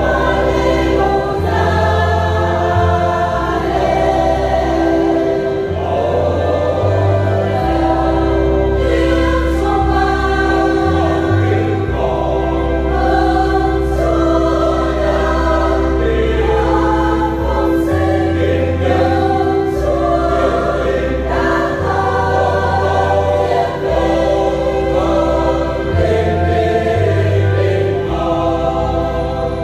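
Church choir singing a Vietnamese Catholic hymn over an instrumental accompaniment of long held bass notes that change every second or two.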